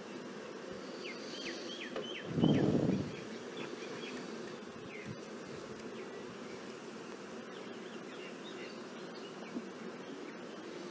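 Honeybees buzzing as a steady hum around an open hive, with a brief louder whoosh about two and a half seconds in and faint high chirps scattered through.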